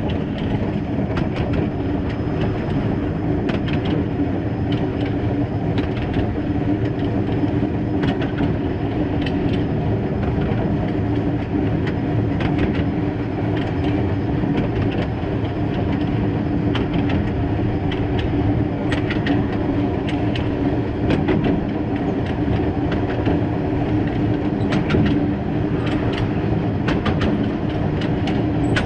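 Small 0-6-0 well-tank steam locomotive running along 760 mm narrow-gauge track: a steady rumble of wheels on the rails with a hum and scattered sharp clicks throughout.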